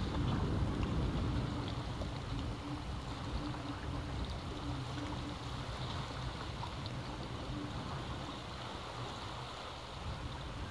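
Sea waves washing against the rocks at the foot of a cliff: a steady rushing of surf, loudest in the first couple of seconds and easing slightly near the end.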